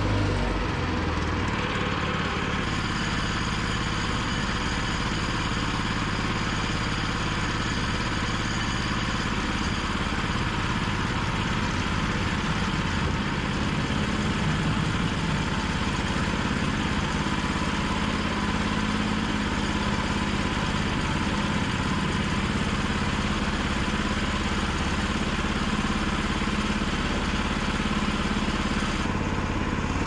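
The gasoline engine of a Woodland Mills portable bandsaw mill running steadily under load as the band blade cuts along a log.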